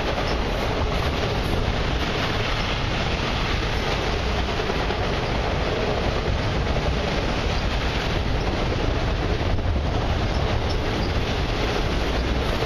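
Enclosed autorack cars of a long freight train rolling past below, a steady, even noise of steel wheels on rail.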